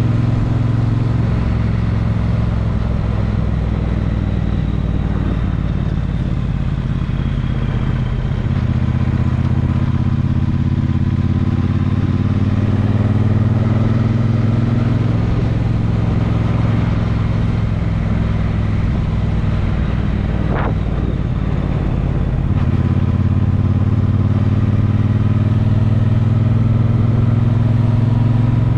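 Vehicle engine running steadily on the move, a loud low drone whose pitch shifts a little a few times.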